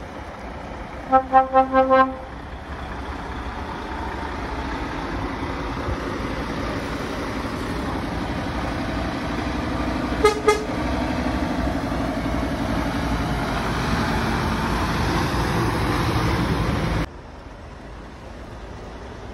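A truck horn toots about five times in quick succession, then a truck's engine and tyres grow steadily louder as it approaches, with two short horn toots about halfway. The vehicle noise cuts off abruptly near the end.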